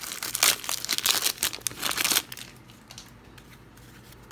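Plastic wrapper of a trading-card hanger pack being torn open and crinkled, a dense crackling for about two seconds that then dies down to a few faint rustles.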